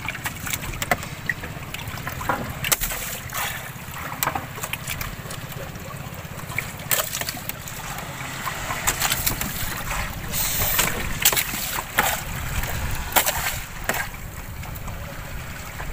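Boat engine running steadily while waves slap and splash against the hull in rough sea, with many short irregular splashes.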